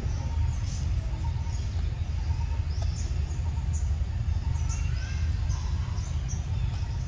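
Scattered short, high bird chirps over a steady low rumble.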